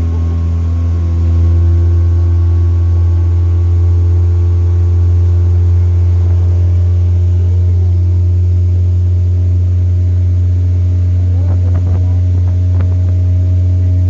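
Small motorboat's engine running steadily under way, a loud low drone, slightly louder a second or two in, with water rushing off the hull. A few light knocks near the end.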